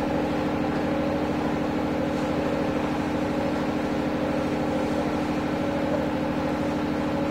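Steady low machine hum, like a motor or engine running, with one strong unchanging tone and a low drone beneath it.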